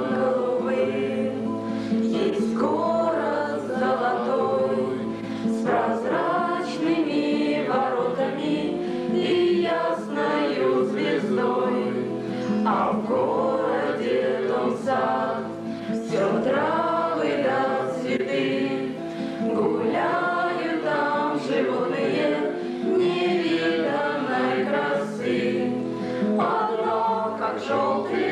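A group of girls singing a song together in unison, accompanied by an acoustic guitar.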